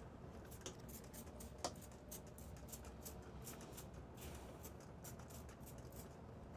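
Faint, scattered light clicks and rustles of small things being handled, with one sharper click about a second and a half in.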